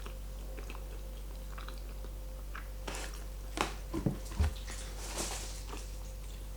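A person chewing carbonara pasta close to the microphone, with a cluster of short clicks and wet smacks about three to five seconds in, over a steady low hum.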